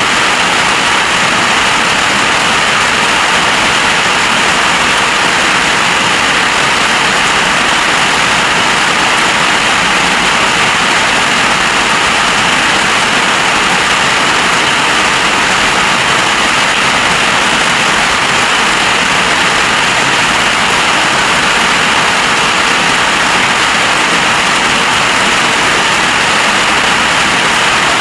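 Heavy storm rain pouring down in a steady, loud, unbroken hiss.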